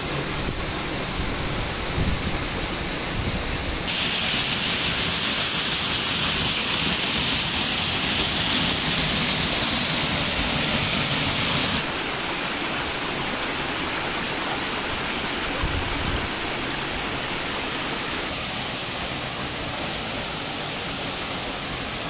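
Waterfall in full flow after heavy rains, rushing steadily where the water pours down the rock face straight into the plunge pool. The rush grows louder and brighter about four seconds in and drops back about twelve seconds in.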